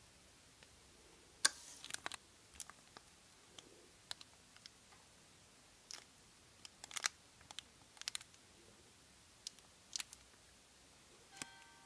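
Small plastic toy figure and its clear plastic wrapper being handled: scattered small clicks and crinkles, some in quick clusters, as the figure is pressed onto its base.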